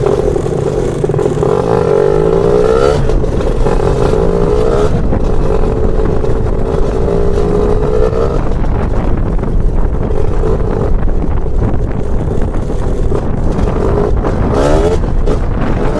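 Lambretta scooter's BFA 325 two-stroke engine being ridden. The engine note climbs and drops back a couple of times as the gears change, holds fairly steady for a few seconds, then revs up sharply near the end.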